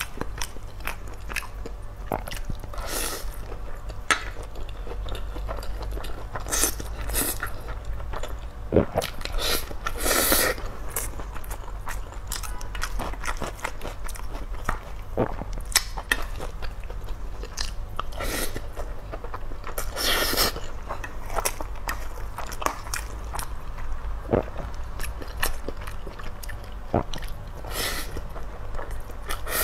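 Close-miked eating: chewing and wet mouth sounds from mouthfuls of fried rice, with sharp clicks and scrapes of a large white spoon against a stainless steel pot scattered throughout.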